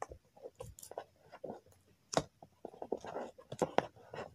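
Cardboard phone box and its paper inserts being handled: a scatter of light taps, clicks and rustles, with a sharper tap about two seconds in.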